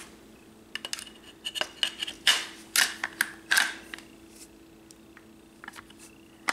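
Metal clicks and clacks of an AR-15's parts as the upper receiver is fitted back onto the lower receiver during reassembly. The clacks come in a quick run over the first few seconds, the loudest about halfway through that run, and a few light clicks follow near the end.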